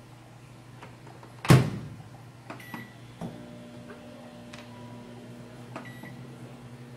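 Microwave oven door shut with a loud clack, followed by two short beeps as the dial is set. About three seconds in the oven starts running with a steady hum that carries on.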